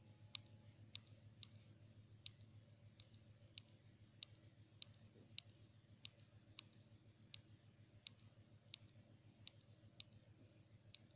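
Faint, evenly spaced clicks, a little under two a second, over a low steady hum, from a phone whose roulette-wheel app is being spun over and over.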